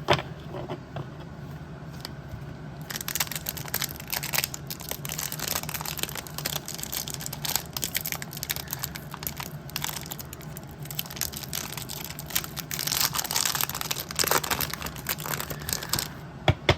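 Crinkling and tearing of a 1991 Fleer Ultra baseball card pack's wrapper as it is opened, over a steady low hum. There is a sharp click at the start and another just before the end.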